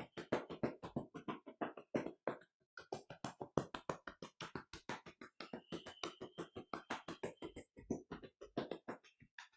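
Hands tapping rapidly and steadily on the thighs, about five or six taps a second, with a brief pause about two and a half seconds in.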